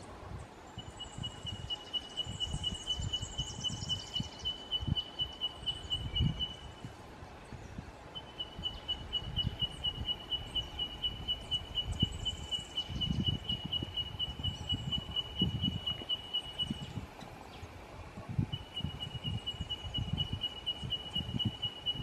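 Wind gusts buffeting the microphone with low thuds, over a high, even trill of rapid notes on one pitch that runs in three long stretches of several seconds each. Faint high chirps come near the start.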